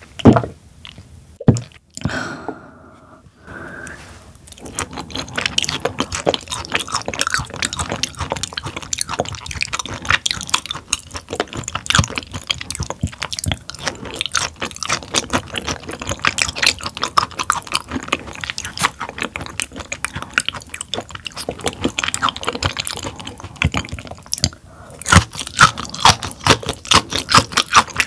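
Close-miked chewing of raw tuna sashimi: a dense run of small mouth clicks from about four seconds in, after a few separate knocks in the first two seconds.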